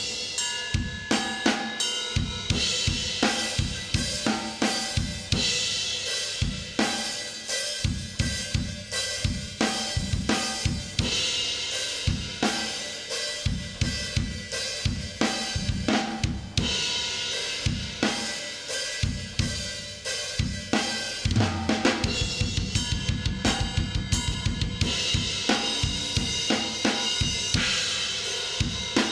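Recorded metal drum kit played back soloed, with kick, snare, hi-hat and cymbals running through a 160-style VCA compressor. Near the end the kick plays a fast double-bass run.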